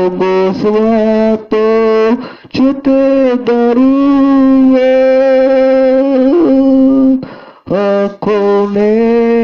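A man singing into a handheld microphone: short phrases of long held notes that bend and slide in pitch, with brief breaks between them and one longer held phrase in the middle.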